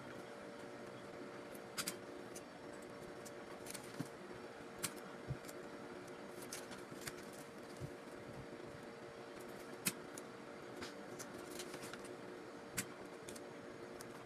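Banknotes being handled and laid out on a table: scattered light clicks and rustles of the notes, over a steady background hum.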